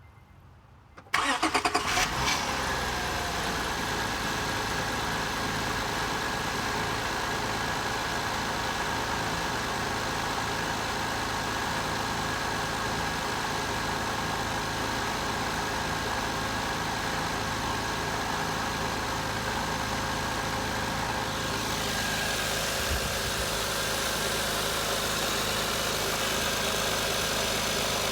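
2005 Acura TL's 3.2-litre V6 cranking and catching on a cold start about a second in, then idling steadily. The owner says this high-mileage engine (172,300 miles) makes a knocking noise at cold start.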